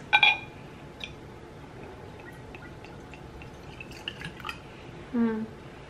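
Liquid poured from a swing-top glass bottle into a drinking glass: faint trickling and dripping, with a short bright sound just after the start.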